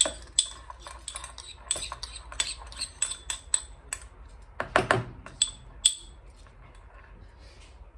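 A metal spoon clinking and tapping against a mixing bowl as minced garlic is added to a marinade: a quick run of light, ringing clinks, about three a second, for the first six seconds, then only soft handling sounds.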